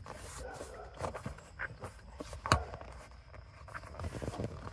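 Hands rustling and knocking against a leather car seat and its plastic side trim while feeling for the seat-release latch. There are scattered light clicks and one sharper knock about two and a half seconds in.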